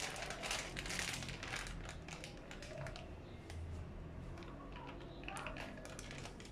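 Faint kitchen handling sounds: light clicks, taps and rustles of utensils and packaging, thickest in the first two seconds with a few more about five seconds in.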